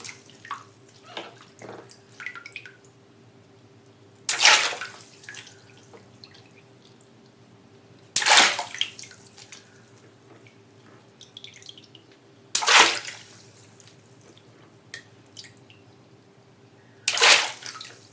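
Water-filled balloons bursting four times, about four seconds apart. Each is a sudden pop that runs straight into a short splash of water, with small drips and patters between the bursts.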